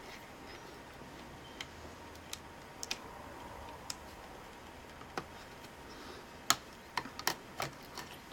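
Scattered light clicks and taps of small laptop parts being handled and fitted during reassembly, a few at first and several close together near the end.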